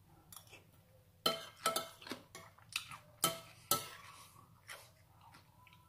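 Metal spoon clinking and scraping against a large ceramic plate while scooping salad, a run of sharp clinks with a brief ring, the loudest about a second to four seconds in.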